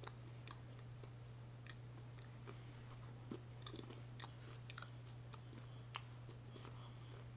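A person chewing a small piece of candy: soft, scattered clicks and crunches, over a steady low hum.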